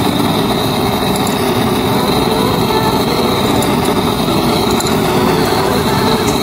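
Handheld gas blowtorch screwed onto a canister, burning steadily with its flame on a brass brake-line fitting.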